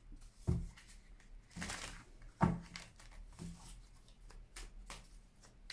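A deck of cards being shuffled by hand: a few soft knocks, a short rustling riffle of the card edges, and light ticks of cards sliding together.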